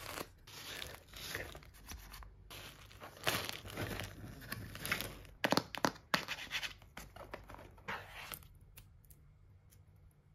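Paper wrapping rustling and crinkling as it is folded inside a cardboard mailer box, then a few sharp knocks and clicks as the box is closed and handled. It goes much quieter near the end.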